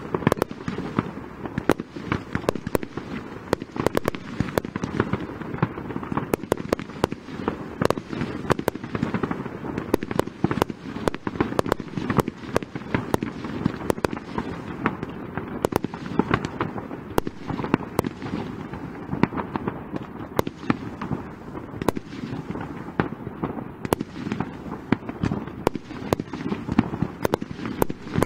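Fireworks display going off continuously: a dense, unbroken run of sharp bangs and crackles, several a second.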